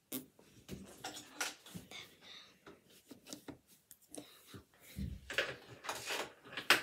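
Rustling and scattered light clicks and knocks from someone moving about close to the phone, busiest and loudest in the last couple of seconds.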